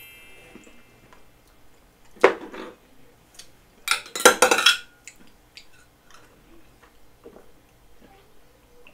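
A carbonated soda can cracked open about two seconds in, a short hiss trailing after the crack. About four seconds in, a metal straw clinks and rattles in the can's opening, with a brief ring, then faint sips through the straw.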